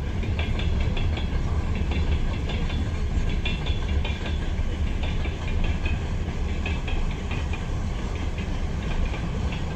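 Freight train wagons rolling past, a steady low rumble with repeated clusters of clicks as the wheelsets cross the rail joints.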